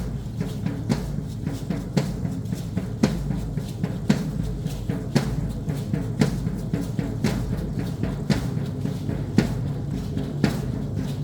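Drum for a traditional Mexican danza beaten in a steady rhythm: a heavy accented stroke about once a second with lighter strokes between.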